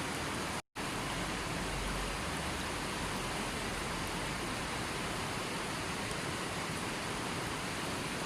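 River water flowing steadily in an even rushing wash. The sound cuts out to silence for a split second a little under a second in, then resumes unchanged.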